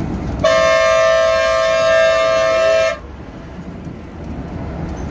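A Volvo B11R coach's horn gives one loud, steady blast of about two and a half seconds, starting about half a second in, to get the slow truck ahead to give way. The coach's engine and road noise rumble underneath.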